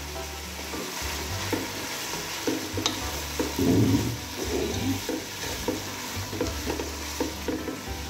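Wooden spatula stir-frying shredded cabbage, carrots, green peppers and chicken in a large pot, with repeated scraping, tossing strokes starting about a second and a half in over a steady sizzle of hot oil.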